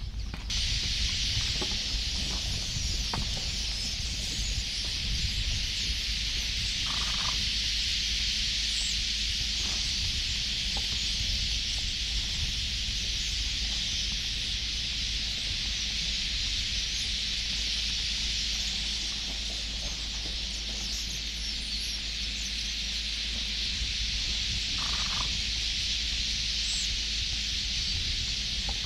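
Steady, high-pitched drone of insects calling in dry bush, unbroken throughout, over a low rumble. Two brief faint calls stand out, about seven seconds in and near the end.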